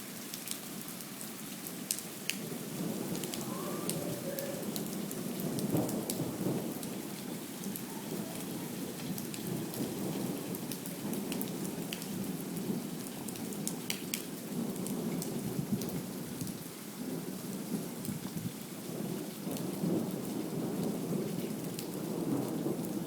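Steady heavy rain in a thunderstorm, with scattered sharp ticks of drops striking nearby surfaces. Low rumbling thunder swells about six seconds in and again near the end.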